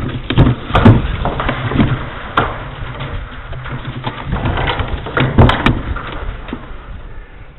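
Irregular knocks and clunks of a small camera being handled and bumped against the corrugated steel of a grain bin, over a steady low rumble.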